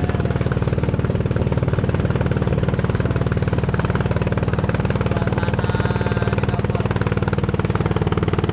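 Kelotok's inboard engine running steadily with a fast, even chug.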